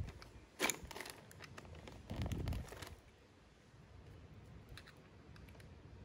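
Small sharp clicks and scrapes of a flathead screwdriver working at the plastic gears of a Traxxas 2085 servo being taken apart, with some plastic rustle and handling bumps. The clicks come in a quick cluster about a second in, with a few fainter ticks near the end.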